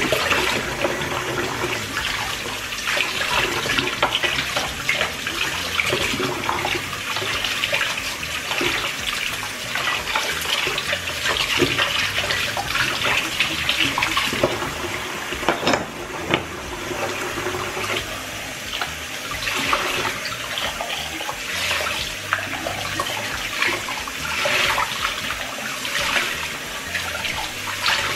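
Kitchen tap running steadily into a sink while dishes are rinsed under the stream by hand, the water splashing off a wooden spoon and a glass. Occasional light knocks and clinks of utensils against the sink, one sharper knock about halfway through.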